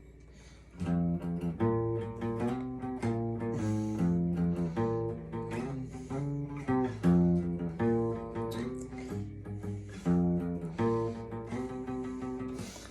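Instrumental music on string instruments, with guitar and a low bass line, starting about a second in; it is the lead-in to a song before any singing.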